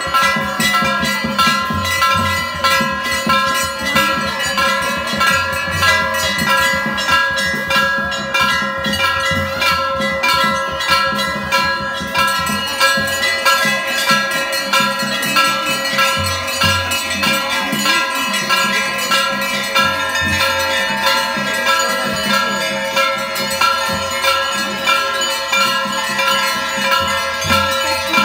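Temple bells ringing during a puja, struck over and over about once a second so their ringing tones overlap, with low thumps underneath.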